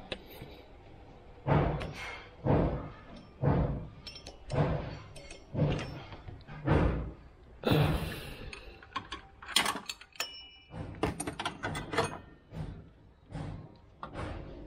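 Drive belt and engine parts handled in a car's engine bay: a run of dull thuds about every two-thirds of a second, then, from about halfway in, a flurry of sharp metallic clicks and clinks of a ring spanner against engine parts.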